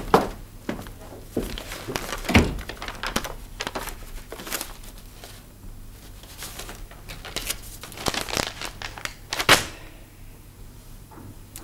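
Paper rustling and crinkling as a manila envelope is handled and opened, in irregular bursts, with a heavier knock about two and a half seconds in.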